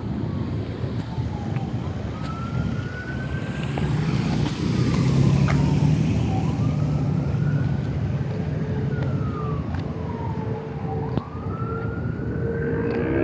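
Emergency-vehicle siren wailing, its pitch slowly rising and falling about every four to five seconds, over a low steady rumble.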